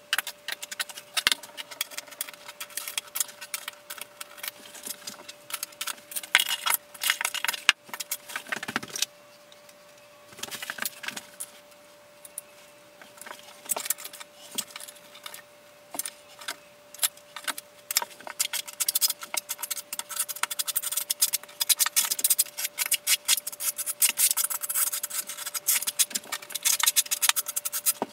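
Small Carrara marble mosaic tiles clicking and clattering as they are handled, then a steel notched trowel scraping thinset across the shower floor, with dense, quick scraping strokes through the second half.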